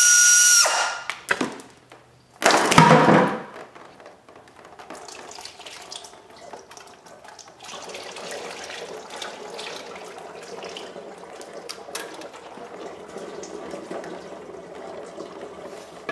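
An air ratchet whirs and stops within the first second, and a brief loud rush follows about three seconds in. After that, automatic transmission fluid pours steadily out of the lowered transmission pan into a catch pan below.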